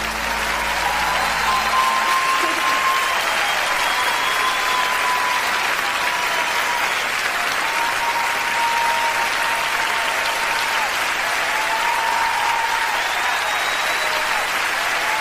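A large concert audience applauding at the end of a live song, a dense, steady clapping. The band's last low note dies away about two seconds in.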